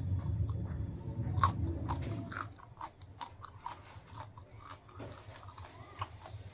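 A person chewing food with wet, clicking mouth sounds, biting and chewing in a rapid uneven rhythm. A low steady hum sits under the first third and then stops.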